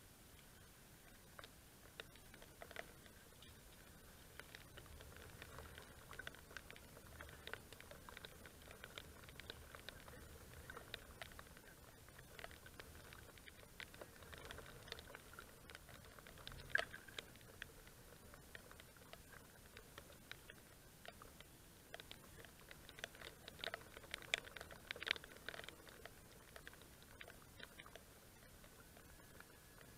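Faint, irregular patter of raindrops ticking on the camera housing, the taps bunching up in the middle and again near the end.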